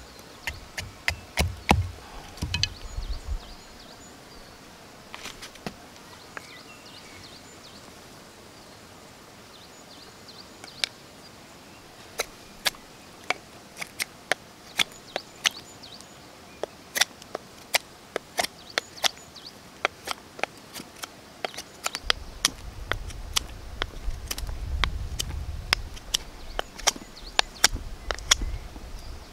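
A hatchet knocked into a log several times in quick succession, with deep thuds, then a knife whittling a thin wooden slat: irregular sharp snicks of the blade cutting dry wood, many in a row over the second half. A low rumble joins in over the last several seconds.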